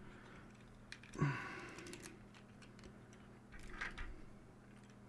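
Small plastic LEGO bricks clicking and rattling faintly as they are picked from a loose pile and handled: a few scattered clicks and rustles about a second in, again a little before the end, and once more at the very end.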